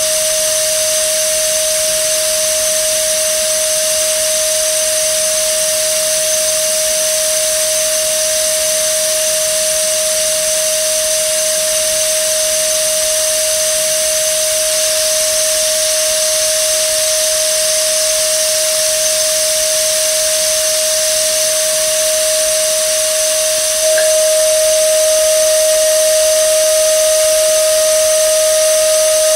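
A steady, unwavering single tone over a hiss, the unexplained sound that the film's roommate searches for. About 24 seconds in it gets a little louder, and fainter higher tones join it.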